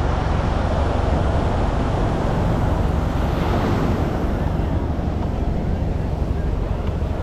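Steady beach ambience: surf washing onto the shore under wind buffeting the microphone.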